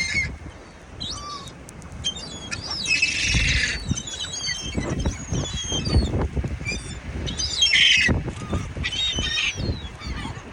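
A flock of gulls calling in short squawks over the flapping of many wings, the calls crowding loudest about three, eight and nine seconds in.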